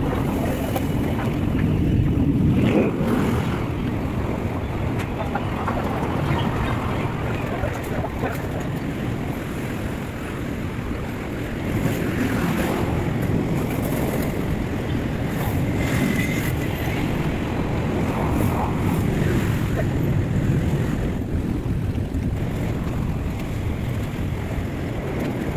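Busy city street: a steady rumble of road traffic, with wind buffeting the microphone.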